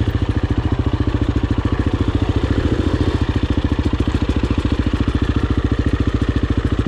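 Single-cylinder KTM enduro dirt bike engine running at low revs with a fast, even beat, as the bike creeps over rocky ground.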